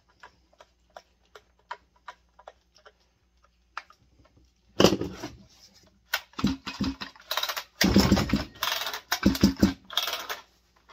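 Husqvarna 162SE two-stroke chainsaw being pull-started. A run of light clicks comes first, then from about five seconds in several hard pulls of the starter cord follow one after another without the engine catching. The owner judges the saw's compression to be poor.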